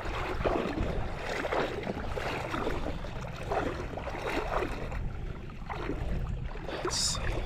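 Shallow water sloshing and swishing in repeated surges, as of someone wading through a flooded marsh flat, over a low rumble of wind on the microphone.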